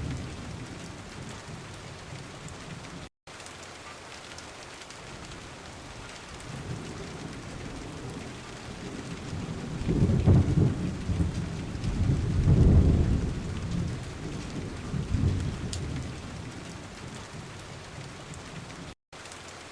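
Heavy monsoon rain falling steadily, with thunder rumbling low from about ten seconds in, loudest around thirteen seconds, then a smaller rumble a couple of seconds later. The sound cuts out for an instant twice.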